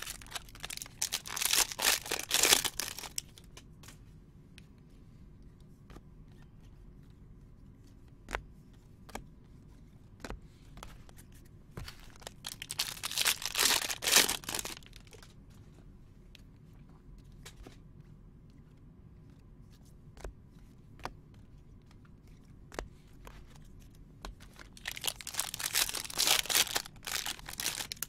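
Foil trading-card packs being torn open by hand, crinkling loudly, in three bursts about twelve seconds apart. Faint clicks and taps come in between.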